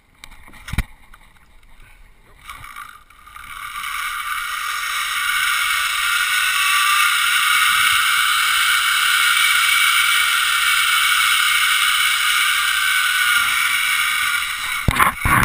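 Zip line trolley pulleys rolling along the steel cable: a hissing whine that builds over the first few seconds, holds steady with faint tones rising and then falling in pitch, and dies away near the end. A few sharp knocks come right at the end.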